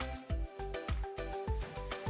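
Background music: a light plucked-string tune over a steady, bouncy beat.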